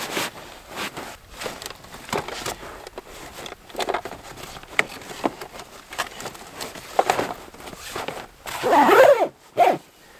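Footsteps crunching in snow among irregular knocks, rustles and scrapes of camping gear being handled and packed. Near the end comes a louder wavering squeak, followed by a shorter one.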